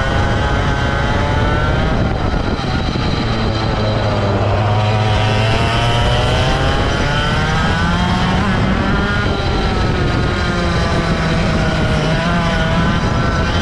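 Racing kart's two-stroke engine heard onboard, its pitch climbing as the kart accelerates and dropping when the driver lifts off for corners, several times over. A steady rush of wind and road noise runs underneath.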